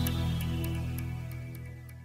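Background music fading out at the end of a piece, sustained tones dying away steadily.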